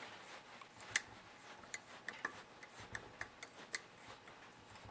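Faint, irregular metal clicks and light rubbing from a Heli-Coil insertion tool screwing a coil thread insert into a tapped exhaust bolt hole.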